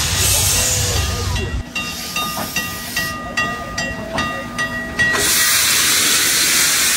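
Class 52 steam locomotive 52 8195-1 rolling slowly with steam hissing. Midway comes a run of short, repeated high squealing tones, and about five seconds in a loud, steady hiss of escaping steam sets in.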